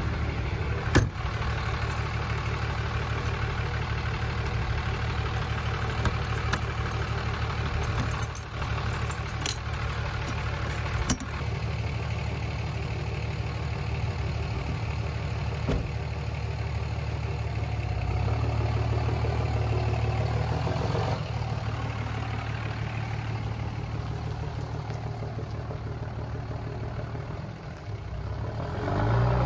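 Dodge Ram 2500 pickup's turbo-diesel engine idling steadily, with a fine regular pulse. A few sharp clicks and knocks come in the first dozen seconds.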